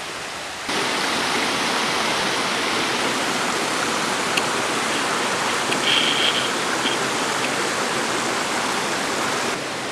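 Steady rush of a fast-flowing mountain creek, coming in suddenly about a second in and holding at an even level.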